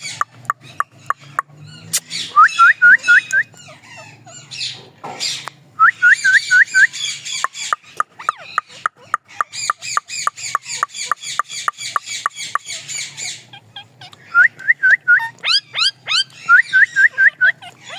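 A pair of pet parrots calling, with repeated runs of four or five short rising chirps, stretches of harsher chatter, and frequent sharp clicks.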